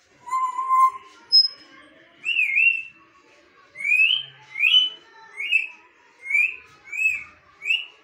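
African grey parrot whistling: a steady low note near the start, a short high peep, then a run of six short whistles that each swoop up and down.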